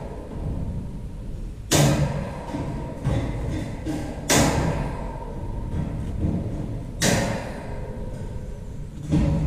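Bolt cutters snapping through steel welded wire reinforcing mesh three times, about two and a half seconds apart, each cut a sharp snap with a short fading tail.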